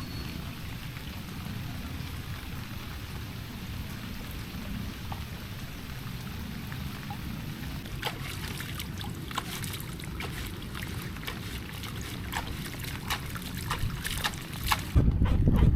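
Steady low rumble of wind and rain with water trickling around a canoe. From about halfway, a run of sharp taps and clicks, and near the end a loud, low burst of wind buffeting the microphone.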